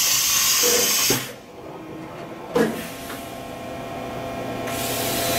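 Spindle of a 2007 Fadal 4020HT vertical machining center starting and spinning up, its running sound rising over the last two seconds. Before that, a steady hiss cuts off about a second in, and a single clunk comes about two and a half seconds in.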